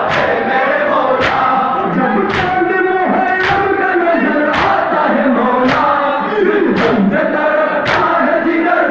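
A crowd of men chanting a mourning lament (noha) in unison, with a sharp slap of hands striking chests about once a second: Shia matam for Imam Hussain.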